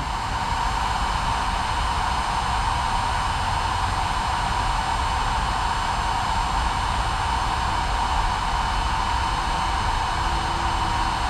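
Kobalt 24-volt cordless heat gun running steadily, its fan blowing with a constant whine. It is heating a solder-seal heat-shrink connector until the solder melts.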